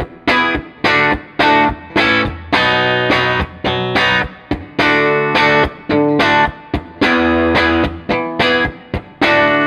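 Electric guitar played through a Fender Blues Junior IV tube combo amp with its Celestion A-type speaker: a rhythmic part of sharply picked chords, some cut short and some left ringing.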